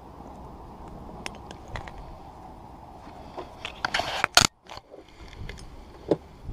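Close handling noise: scattered scrapes and clicks, with a loud burst of rubbing and knocks about four seconds in that cuts off suddenly.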